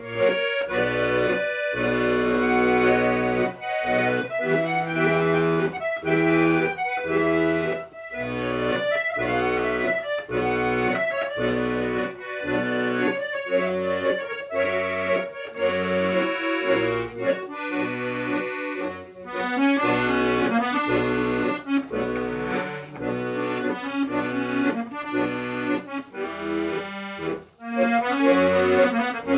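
Instrumental accordion music with a steady, rhythmic accompaniment.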